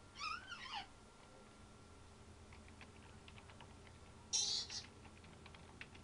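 African grey parrot making sound effects: a short call with a wavering, bending pitch just after the start, scattered faint clicks, then a loud, harsh, hissing squawk about four seconds in, followed by more clicks.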